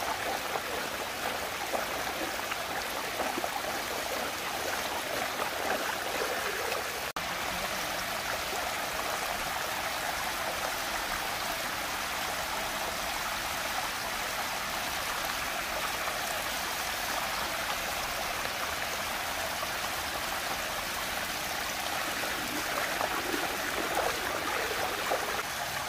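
Water rushing steadily as it swirls down a whirlpool vortex. The sound breaks off for an instant about seven seconds in.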